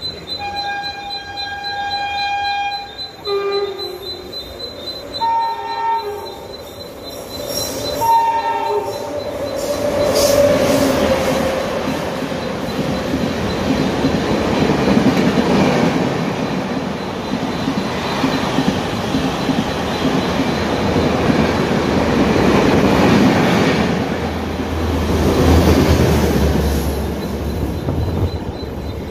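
Indian Railways WAP7 electric locomotive sounding its horn four times, a long blast then three short ones, as it approaches. Then the train runs through at speed: a loud, steady rush and rumble of coaches' wheels on the rails, with some wheel squeal and rail clatter.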